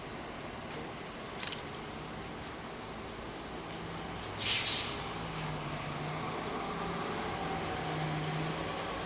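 City transit bus driving past with its engine running, the engine hum growing stronger as it comes close. About halfway through there is one sharp hiss of released air, typical of the bus's air brakes.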